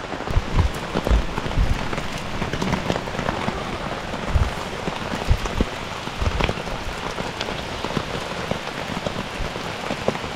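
Heavy downpour: dense, steady rain with many sharp drop hits and occasional low thumps.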